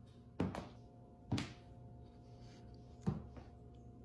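A slipper worn by a walking cat thunking on a hardwood floor: three dull knocks, the last after a longer gap.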